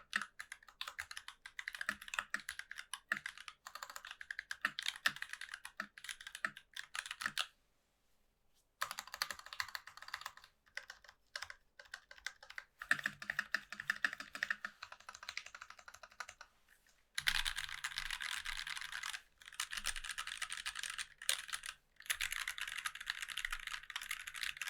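Typing on a mechanical keyboard with lubed C3 Kiwi tactile switches on an aluminium plate, under GMK keycaps: rapid keystroke clacks. There is a short pause about eight seconds in, and the typing gets denser in the last third.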